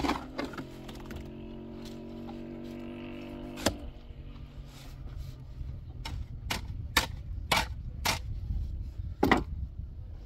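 Long-handled shovel working wet cement mortar in a steel wheelbarrow: scraping through the mix, with a run of sharp knocks of the blade against the pan in the second half. A steady low hum runs under the first few seconds and stops.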